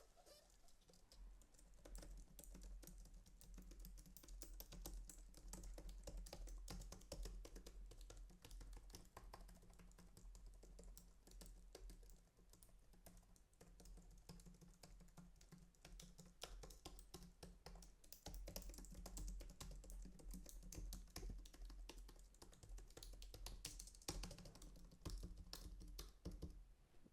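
Typing on the Logitech Craft keyboard's low-profile scissor-switch keys: a fast, steady stream of soft key clicks that thins out for a few seconds in the middle.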